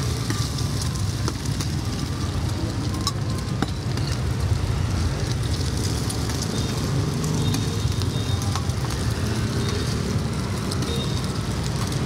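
Oil sizzling on a large flat iron pan as cubes of rice-flour cake and eggs fry, with a metal spatula scraping and clicking against the pan now and then. A steady low rumble runs underneath.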